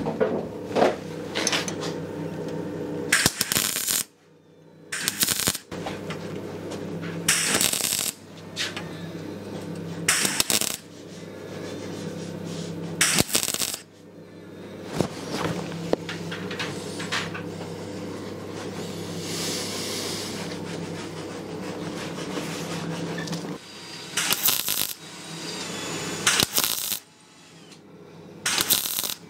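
A handheld electric rotary cleaning tool runs steadily on rusty sheet steel from a VW bus D-pillar, with repeated bursts of harsh metallic scraping each time it is pressed onto the panel to strip it clean. It stops briefly twice, about four seconds in and near the end.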